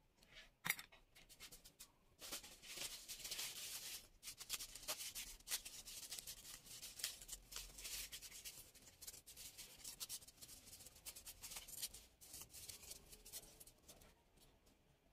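A sharp click, then a paper towel rubbing and scrubbing along the steel rotor shaft of an electric fan motor in many quick scratchy strokes for most of the time. The rubbing stops shortly before the end.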